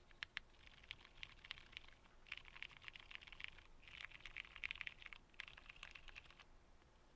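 Typing on a custom 65% mechanical keyboard with Zilents silent tactile switches and GMK Redacted keycaps, fully foamed: a few separate keystrokes at first, then quick runs of soft keystrokes with short pauses, stopping near the end.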